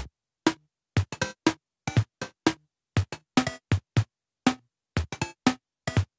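Sparse drum beat opening a children's song: short, dry hits about twice a second with silence between them, some doubled in quick pairs.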